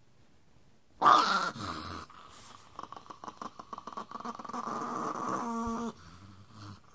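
Chihuahua growling and snarling at being disturbed in its sleep: a sudden loud snarl about a second in, then a long, rough, pulsing growl that stops about a second before the end.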